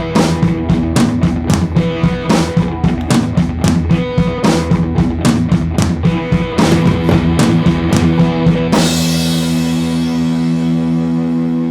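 Background rock music with a steady drum kit beat and guitar. About nine seconds in the drumming stops and a single chord is held ringing.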